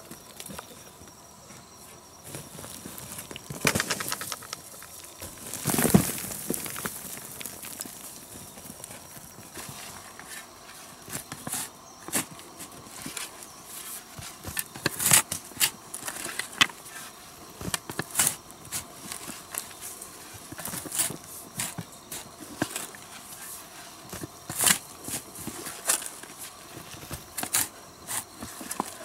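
Irregular knocks and scrapes of manual work with hand tools, with heavier strikes about four and six seconds in.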